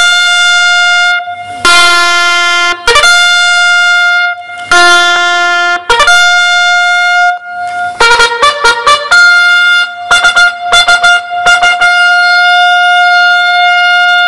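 Military bugle call for the flag-raising, played on a brass horn: several loud held notes on two pitches an octave apart, a quick run of short notes about eight seconds in, then one long held high note.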